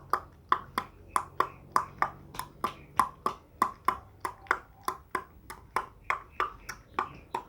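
Tongue clicks imitating a horse's hooves at a trot: a steady, even clip-clop rhythm of about three sharp clicks a second.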